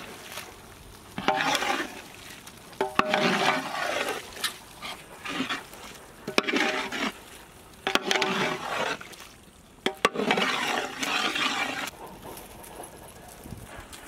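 A metal ladle stirring thick prawn curry in a large metal pot: a series of scraping, sloshing strokes every second or two, with short pauses between them.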